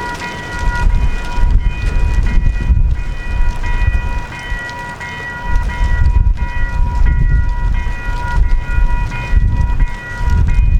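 Diesel locomotive running, with a steady high-pitched whine held over an uneven low rumble that swells and fades.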